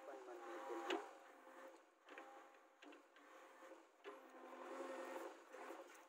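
JCB 3DX backhoe loader's diesel engine and hydraulics running as its rear bucket digs in the trench: a faint steady drone that breaks off and comes back every second or so, with a sharp knock about a second in.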